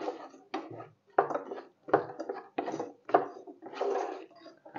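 Wooden spatula stirring frozen sweet corn and Brussels sprouts in a nonstick frying pan: a run of short scrapes and knocks, about two a second.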